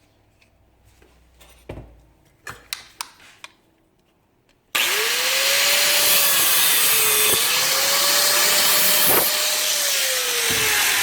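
A few light handling clicks, then about five seconds in a power cutting tool starts abruptly and runs loudly as it cuts the head off a screw. Its motor tone sags and recovers a few times as the cut loads it.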